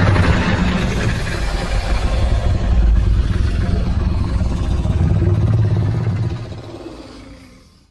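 Stock dinosaur roar sound effect: one long, deep, rough roar that fades out over the last two seconds.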